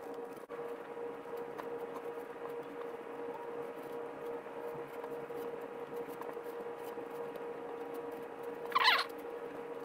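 Steady hum of room tone with faint handling rustle as thin twine is wound tightly around a bamboo gig handle, and one short, loud squeak near the end.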